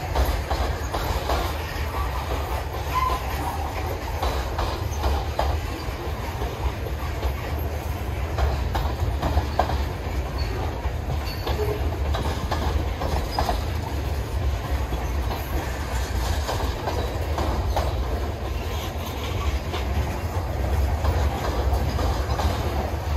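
Freight train of covered hopper cars and a tank car rolling past at steady speed: a continuous low rumble with wheels clicking over rail joints, and a few brief squeaks of wheel on rail.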